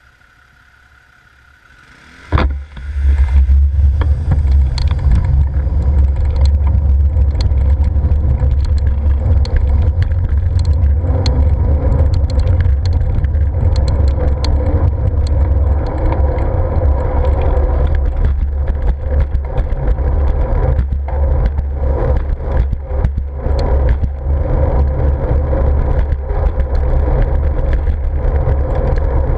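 Heavy wind and road rumble on a bike-mounted action camera while riding, with scattered clicks and rattles from the bike. It starts suddenly about two seconds in after a faint, quiet opening.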